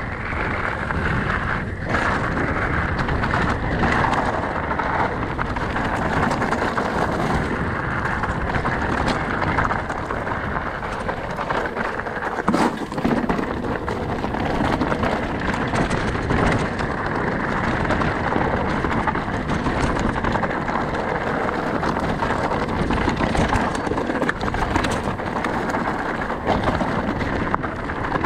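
Mountain bike riding over a gravel trail: tyres crunching on loose stones and the bike rattling with many small knocks, under steady wind rush on the camera's microphone.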